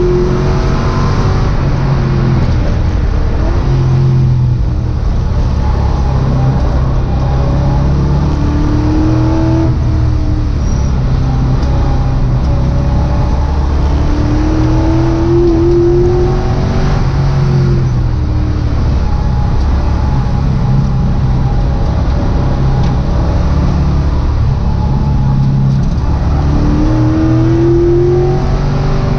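Mazda Miata race car's swapped GM LS V8, heard from inside the cabin while lapping hard: the engine revs repeatedly rise under acceleration and fall away on shifts and braking, several times over.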